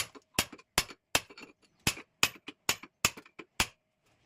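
A run of sharp metallic clicks at an even pace, about three a second, from tool work on a tap fitting; they stop about three and a half seconds in.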